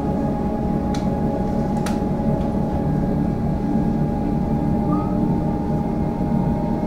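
Inside a Comeng electric multiple-unit train running at speed: a steady rumble of wheels on rail with a constant whine. Two sharp clicks sound about a second in and again a second later.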